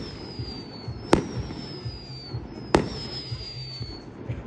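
Fireworks display: two sharp bangs of shells bursting, about a second and a half apart, each followed by a thin high whistle that slowly falls in pitch.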